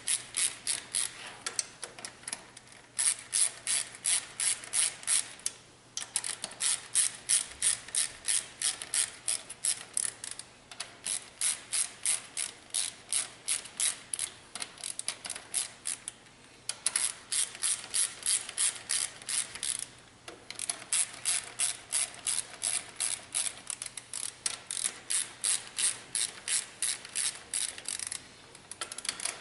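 Hand ratchet clicking rapidly, about four clicks a second, as new head bolts are run down into the cylinder head of a Toyota 2AZ-FE engine before torquing. The clicking comes in runs of a few seconds, broken by short pauses as the ratchet moves from bolt to bolt.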